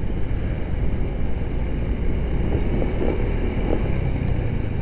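Small motor scooter engine running steadily while being ridden, under a low wind rumble on the microphone.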